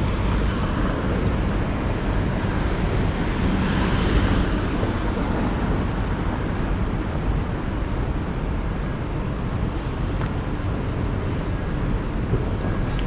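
Steady city street noise: passing traffic with wind buffeting the microphone, swelling slightly about four seconds in.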